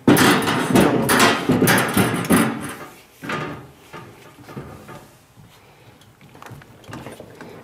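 Metal clatter and rattling as a cow milking unit's stainless steel claw and teat cups are set down into a steel sink, loud for about the first three seconds. Then quieter knocks and rubbing as the milk hose is handled and pushed onto the washer's port.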